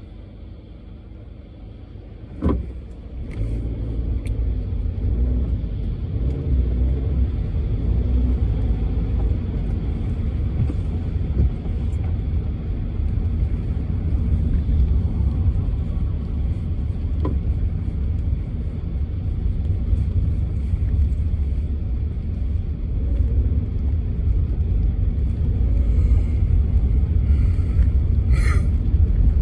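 A car driving, with a steady low road and engine rumble. A sharp knock comes about two seconds in, after which the rumble grows louder and stays heavy, with a brief higher-pitched sound near the end.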